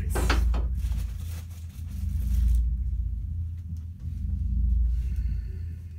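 Wrapping rustling and crackling as a gift is pulled open, densest in the first two and a half seconds, over a steady low rumble that swells and fades slowly.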